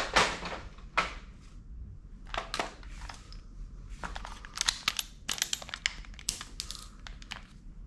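Plastic toy guns being handled: rustle and clatter as they are shifted on the pile and a toy revolver is picked up, then a quick run of sharp mechanical clicks in the second half.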